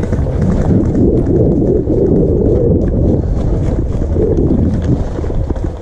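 Running footsteps on the ground, a quick irregular patter, over a steady low rumble of wind on the microphone.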